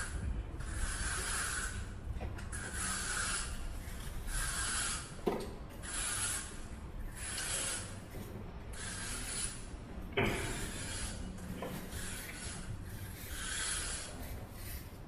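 Repeated rubbing or scraping strokes, about one every second and a bit, with two short knocks in between.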